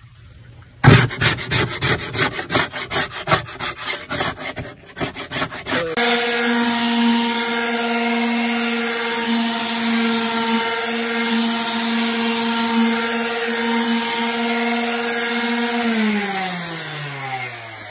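Quick, rough scraping strokes on the glue-crusted fiberglass boat floor, then a Ryobi detail sander running at a steady pitch for about ten seconds as it sands off old carpet glue. Near the end the sander is switched off and winds down with a falling pitch.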